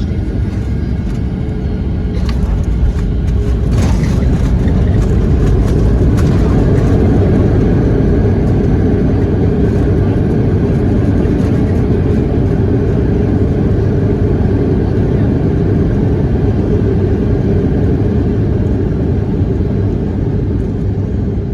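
Airliner landing, heard from inside the cabin: a loud, steady roar of engines and runway rumble. It swells a few seconds in, after a few sharp knocks.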